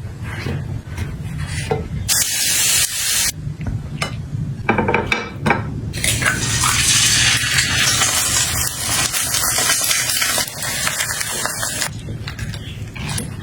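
Liquid being poured, in spells of hissing, splashing noise, the longest lasting about six seconds, with light kitchen handling sounds between them.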